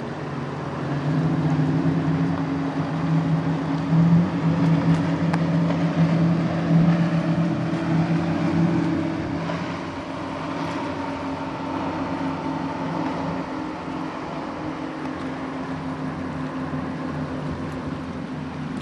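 Bluefin Boats Inferno 33 powerboat running at high speed, a steady engine drone over the rush of water. It drops somewhat in level after about nine seconds and then holds steady.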